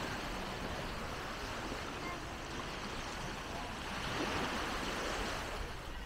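Steady outdoor background noise, with faint voices of passers-by surfacing now and then.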